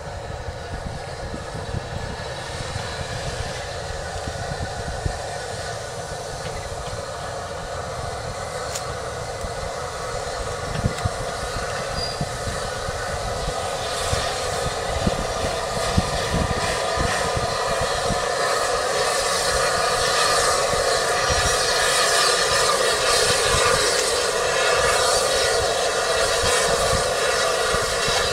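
Rebuilt Bulleid West Country class three-cylinder steam locomotive 34046 Braunton working a passenger train, its chuffing exhaust and running gear getting steadily louder as it approaches over the last fifteen seconds or so.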